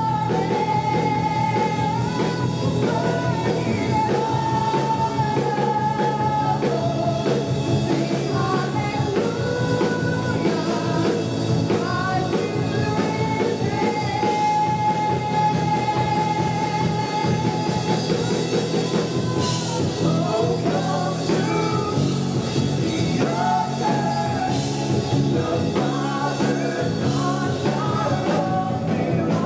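Live worship band: a man and a woman singing into microphones over electric guitars and a full band, the congregation singing along.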